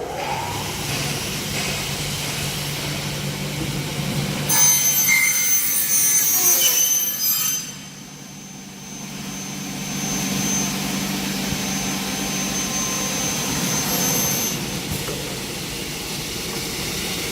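Kingmac K20S double-head aluminium cutting saw: the blade motor runs up to speed and hums. About four seconds in, the circular blade cuts through an aluminium window profile for about three seconds, the loudest part, with a high ringing whine. After that the motor hum carries on.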